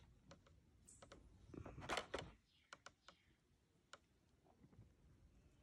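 Faint, scattered light clicks and taps from small plastic items being handled, with a brief rustle about two seconds in.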